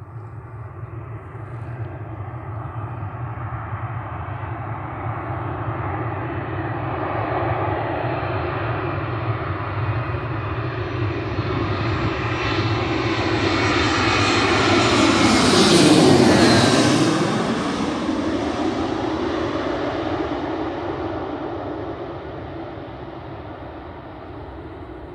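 Wizz Air Airbus A320-family jet airliner on landing approach, passing low overhead. Its engine noise builds steadily, peaks about sixteen seconds in with a whine that drops in pitch as it goes over, then fades away.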